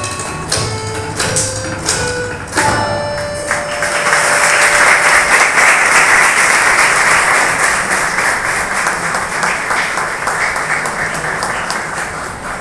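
Tabla strokes over held harmonium notes end with a final stroke a little over two seconds in. The audience then breaks into sustained applause, which slowly fades near the end.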